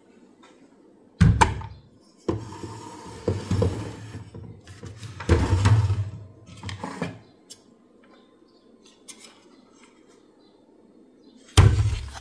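Handling noise: a heavy thud about a second in and another near the end, with two stretches of rattling and scraping between them.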